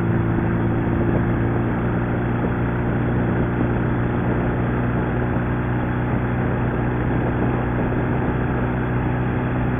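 Sidecar motorcycle's engine running steadily at highway cruising speed, its pitch holding even throughout.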